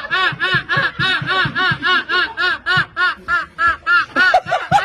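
High-pitched, rhythmic laughter: an unbroken string of short "ha" pulses, about five a second, each rising and falling in pitch.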